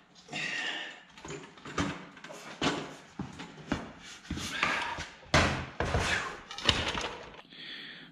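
Irregular metal clunks and knocks, with a short scrape about half a second in, as the 2 HP motor is worked loose and lifted off a Bridgeport Series 1 variable-speed milling head.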